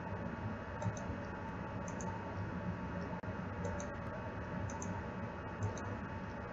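Computer mouse clicking, quick double clicks roughly once a second, over a steady low background hum.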